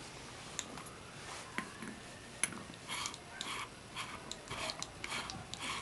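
Faint, irregular clicks of a ratchet and socket working on the threaded end cap of a rear disc brake caliper, sparse at first and coming more often in the second half.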